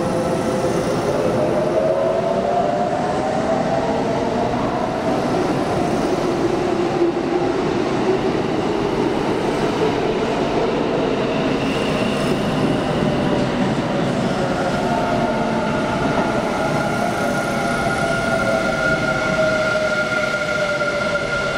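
Electric commuter train running, with a motor whine in several tones that rise in pitch over the first few seconds. Later, higher steady tones set in while lower ones fall in pitch.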